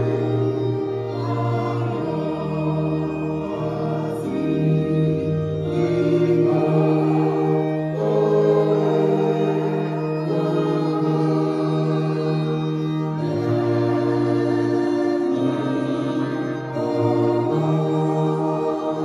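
Church choir singing a hymn in slow held chords, with organ and bowed violins accompanying.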